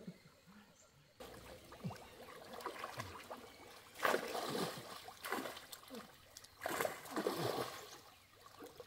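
Shallow muddy pond water splashing and sloshing as people wade through it and drag a seine net. It is quiet for about the first second, then comes in bursts, the loudest about four seconds in and again near seven seconds.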